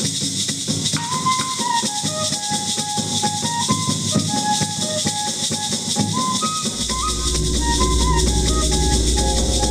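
Kukama Mashakara dance music from a small band: a flute plays a stepping melody over a bass drum, a snare drum and maracas. About seven seconds in, a low steady rumble joins and the music gets a little louder.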